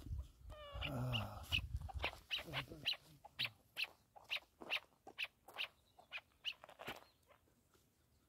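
Chukar partridge giving a steady series of short, sharp clucking calls, about two to three a second, fading out near the end. A low rumbling noise fills the first two seconds.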